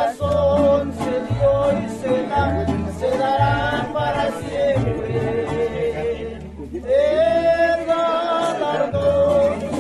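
Mariachi band playing and singing a praise song: sung voices holding long notes over strummed strings and a deep bass line.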